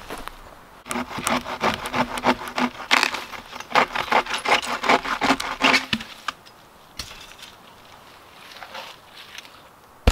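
Hand saw cutting through dead wood in quick back-and-forth strokes, about four a second, with the blade ringing faintly. The strokes stop about six seconds in.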